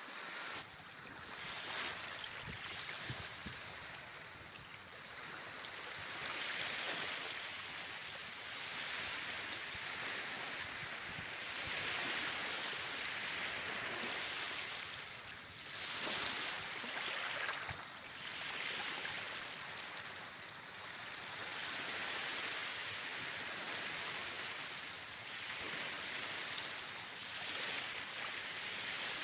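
Surf washing onto a sandy beach: a steady hiss of breaking waves that swells and ebbs every few seconds.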